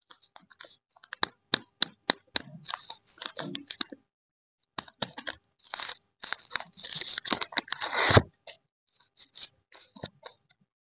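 Plastic lollipop wrapper crinkling and crackling in the fingers as it is twisted and peeled open, in sharp crackles at first, then a denser tearing crackle from about five to eight seconds in that stops suddenly. A few faint crinkles follow near the end.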